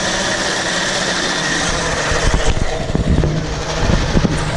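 Coffee grinder running on beans as a steady, loud grind, which stops about two and a half seconds in. Low knocks and a low hum follow.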